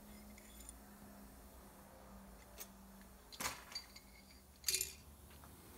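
Two short metallic clinks, about three and a half seconds in and again about a second later, as a steel tool and workpiece knock against a lathe's four-jaw chuck, with fainter ticks between them over a low steady hum.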